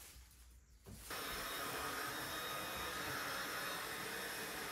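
Small handheld vacuum cleaner switched on about a second in, then running steadily with an even whine as it sucks yarn clippings off a carpet.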